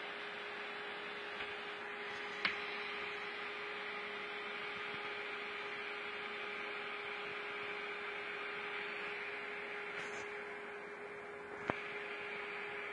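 Steady hum with a constant hiss under it, broken by two sharp clicks, one about two seconds in and one near the end.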